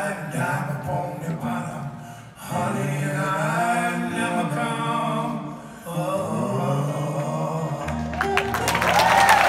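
Live acoustic blues band ending a song: guitar picking, then long held sung notes. Applause and cheering break out near the end.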